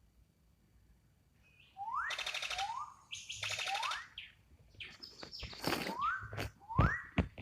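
Bird calls: a series of short rising whistled notes, mixed with two harsh buzzy calls. The calls begin about two seconds in, and sharp clicks come near the end.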